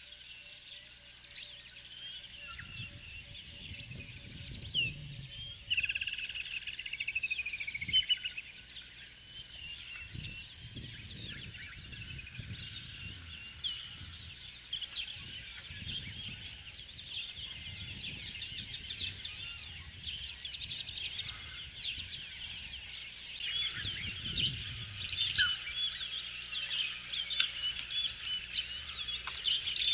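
Wild birds singing and chirping, many calls overlapping, with the calling busiest in the second half. A low rumbling noise swells and fades several times beneath the birdsong.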